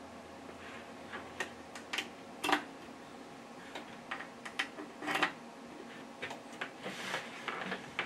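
Irregular clicks and knocks of 1/4-inch jack adapters on RCA plugs being handled and pushed into a mixing board's input jacks. The two loudest knocks come about two and a half and five seconds in.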